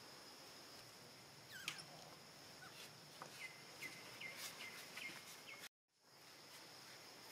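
Faint outdoor ambience: a steady high drone of insects, with a run of short, high chirping calls in the middle. The sound drops out completely for a moment near the end.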